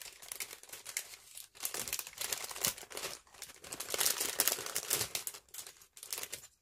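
Crinkling and rustling of plastic packaging being handled, in several bursts with short pauses.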